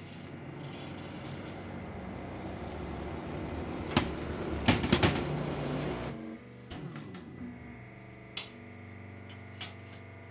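Wool baling press running, its noise building for several seconds with a few sharp knocks. About six seconds in the motor cuts off and winds down in falling pitch, leaving a steady hum and a few scattered clicks.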